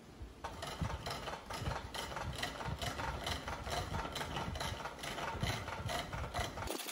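Chisel cutting a dry-wood baton blank on a treadle-driven spring pole lathe: a rhythmic scraping and rattling as the blank spins back and forth with each treadle stroke. It starts about half a second in and stops abruptly just before the end.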